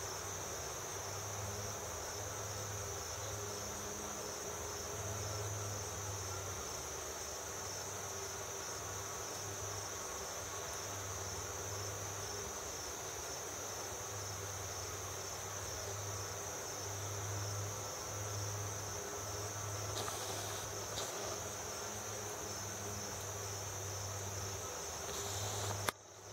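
Steady, high-pitched summer insect chorus that goes on without a break, with a faint low hum coming and going underneath. A sharp click and a brief dropout come just before the end.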